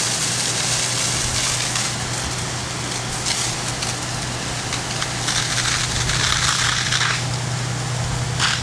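Fire engine pump running with a steady low hum while a truck-mounted Hurricane monitor throws a water stream, a continuous rushing hiss that surges louder a few times, about three seconds in, between five and seven seconds, and near the end.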